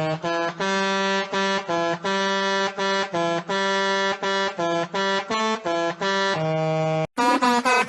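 A variation of the Pakistani bus horn tune, played as a rapid run of short, repeated pitched notes. About seven seconds in it cuts off abruptly and another version starts, whose notes bend up and down in pitch.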